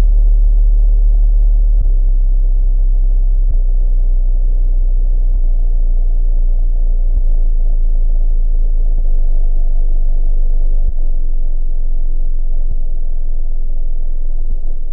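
Very deep, loud sub-bass tone from a subwoofer test track, held steady on one low pitch.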